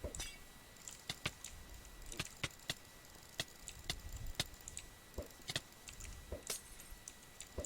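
A series of sharp, dry clicks at irregular intervals, roughly two a second, some coming in quick pairs, over a faint steady high-pitched hum.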